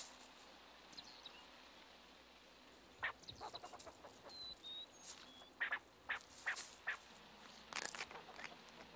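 Faint rustling and scratching in dry pine needles and leaf litter as a fox squirrel and cottontail rabbit forage, coming in short clusters from about three seconds in, with a couple of faint high bird chirps about four seconds in.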